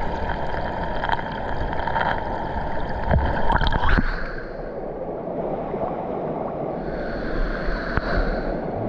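Rushing water of a mountain waterfall and stream, an even steady wash. Background music with drum hits plays over it and drops out about four seconds in.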